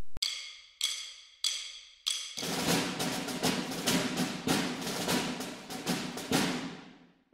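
Logo sting music: four ringing struck notes about two-thirds of a second apart, then a busy passage of rapid percussion hits that fades out near the end.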